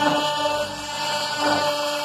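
CNC router spindle running an end mill through wood on a roughing pass: a steady whine of several held tones over cutting hiss, with some tones shifting slightly as the cutter moves.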